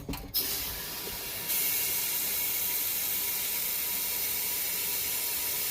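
Tap water running from a sink faucet into a tea kettle, a steady rushing hiss that grows louder about a second and a half in.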